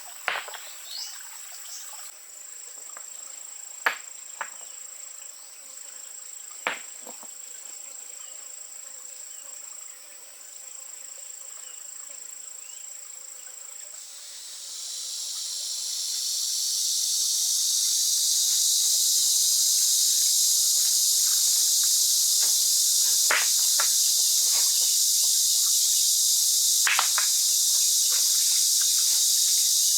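Insects calling: a steady high-pitched drone, with a few light clicks or taps. About halfway through, a much louder high, hissing insect chorus swells in and then holds steady.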